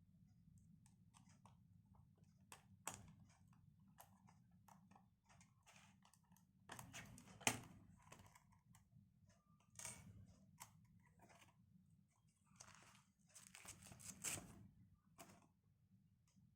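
Faint handling noises: scattered light clicks and short rustles, with a sharper click about seven and a half seconds in.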